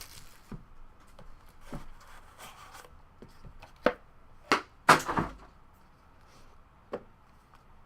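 Trading-card box and packs being handled on a table: scattered cardboard taps and knocks with light rustling, the loudest hits about four to five seconds in and one more near the end.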